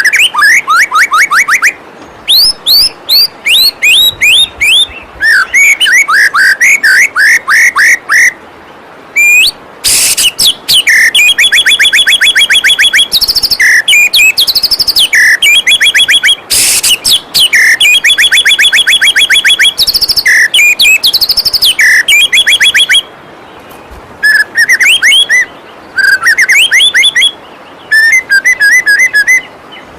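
White-rumped shama singing in phrases of rapid, evenly repeated sharp notes and quick whistled slurs, with short pauses between phrases, over a steady rush of waterfall water.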